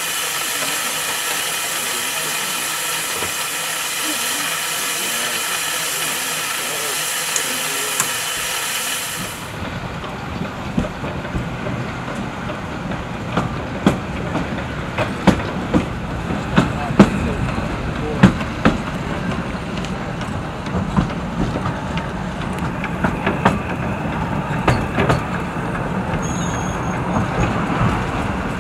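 Small narrow-gauge saddle-tank steam locomotive blowing off steam in a steady hiss from low down by its cylinders. About nine seconds in the hiss gives way to a second small saddle-tank engine, a lower rumble scattered with irregular clanks and clicks as it works slowly over the track.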